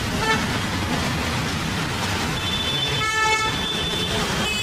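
Steady street traffic noise, with a short vehicle horn toot about three seconds in.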